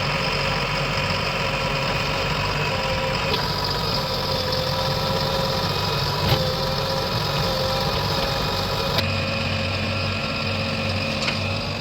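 Diesel engine of a backhoe loader or tractor running steadily at low revs. The sound changes abruptly twice, and there is one short click midway.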